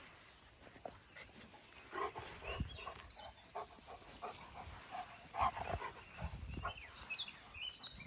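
Malamutes giving scattered short, quiet vocal sounds while they play together.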